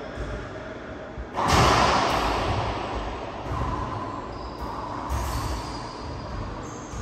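Racquetball play in an enclosed court: one loud hit about a second and a half in that rings on and fades over a couple of seconds, followed by a few short high squeaks.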